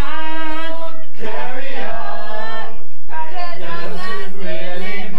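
Small group of men and women singing a cappella in harmony, holding long sustained notes, with a brief break about three seconds in before the voices come back in.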